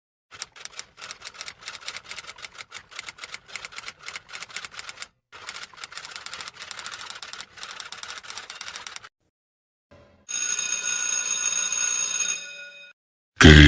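Typewriter keys clattering in quick, irregular strokes for about nine seconds, with a brief pause partway, followed by a bell ringing for about two and a half seconds. A loud, short vocal sound cuts in at the very end.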